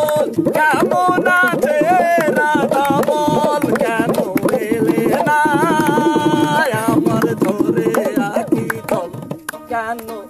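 Live Bengali folk music: a slung barrel hand drum beats time under a wavering melody line. The music thins out and gets quieter near the end.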